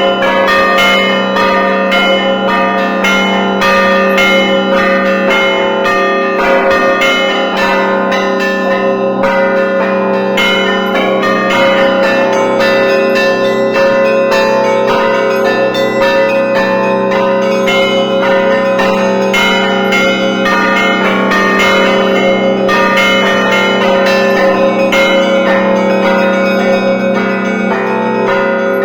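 Russian Orthodox church bells rung by a bellringer: a dense, continuous peal of many bells together, with quick repeated strikes of small bells over the steady ring of larger, deeper bells.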